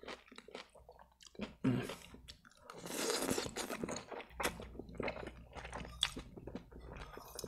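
Close-miked eating of spaghetti in tomato sauce: wet chewing with many small mouth clicks, and one long slurp of noodle strands about three seconds in.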